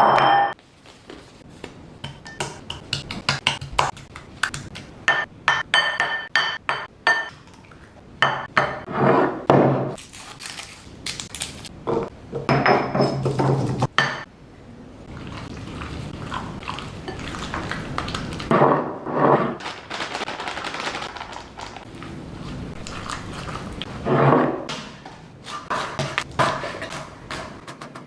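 Kitchen utensils clinking and knocking against bowls and pans in quick runs of clicks, with a long stretch of steady hiss in the middle.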